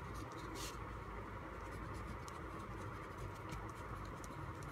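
A pen scratching on paper as letters are written, in faint short strokes over a steady low room hum.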